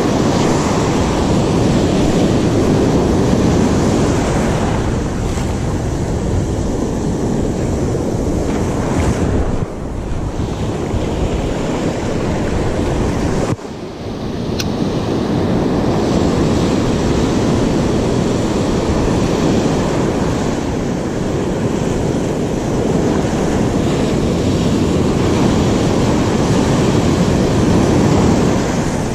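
Ocean surf breaking on the shore, mixed with wind noise on the microphone: a steady rushing noise that dips briefly twice.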